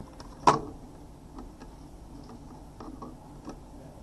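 Handling noises from a plastic diagnostic interface and its cables on a desk: one sharp knock about half a second in, then a few faint scattered ticks.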